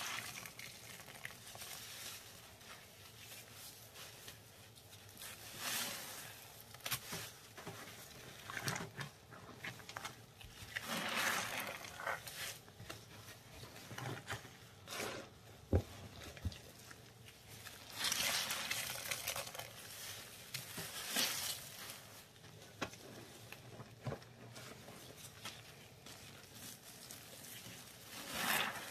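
Wet, foamy paste squished and squeezed by gloved hands, with a porous block pressed through it: wet squelching in irregular swells every few seconds, and one sharp click about halfway.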